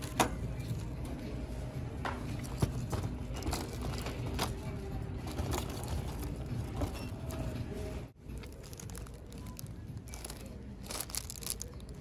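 Merchandise in plastic packaging being handled: crinkling plastic and sharp clicks and taps as items are picked up and put back, over a steady store hum. The sound drops out briefly about eight seconds in.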